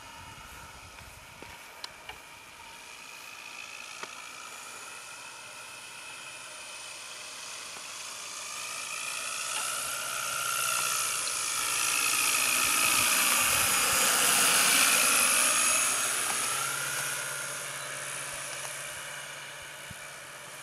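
Model Demoiselle monoplane's motor and propeller buzzing in flight. The buzz grows louder as the model flies close past, peaks about two thirds of the way through, and its pitch drops slightly as it passes before fading away.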